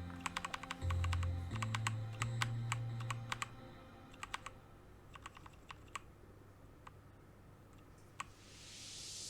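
Keys of a mechanical keyboard with brown switches clacking, in quick runs at first and then as scattered single clacks.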